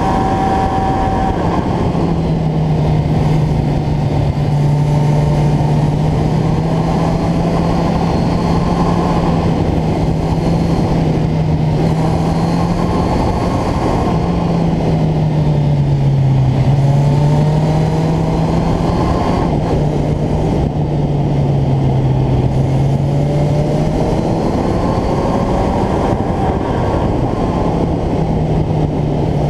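Motorcycle engine running at road speed, its pitch rising and falling with the throttle through the bends and dipping lower twice midway, over a steady rush of wind.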